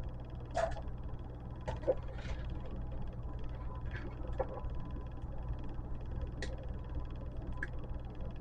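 Scattered light clicks and knocks, about eight over several seconds, as steel parts are worked off a metal light-fixture housing, over a steady low hum.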